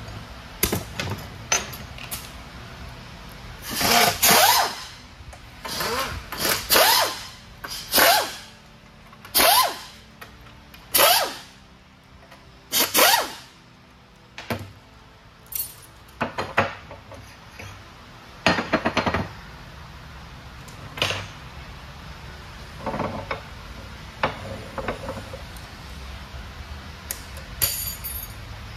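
Pneumatic air hammer firing in about a dozen short bursts of roughly half a second each, chattering against the front of a truck transmission's cast-iron case while driving out the input shaft and its bearing.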